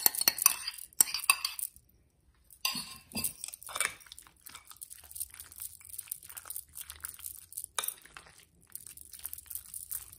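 Minced onion scraped and tapped out of a small bowl into a glass mixing bowl, then a utensil stirring and folding potato salad, clinking and scraping against the glass. There is a brief pause about two seconds in before the stirring.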